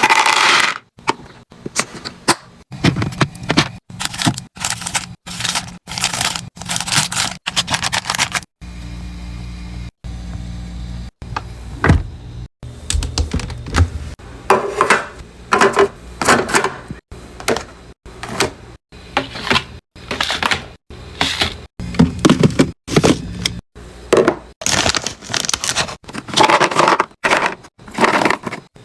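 Mini fridge being restocked: items and their packaging handled and set in place, with crinkling, knocks and scrapes in short clips that cut abruptly one into the next, and a steady low hum for a couple of seconds partway through.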